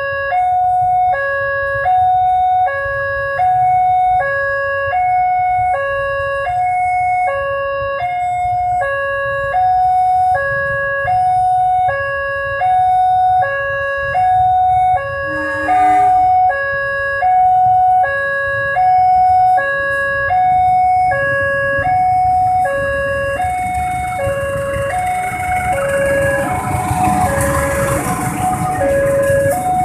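Railway level-crossing warning alarm sounding a two-tone electronic signal that alternates steadily between a higher and a lower note. From about three-quarters of the way in, the rushing rumble of a passing passenger train grows louder under the alarm.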